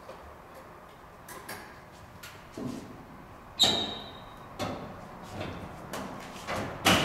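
The steel hood of a 1950 Buick Super being lowered and shut: light knocks and clicks as it comes down, then a loud metallic clunk with a brief ring about halfway in as it closes. Further knocks follow as it is pressed down, and there is another sharp clunk near the end.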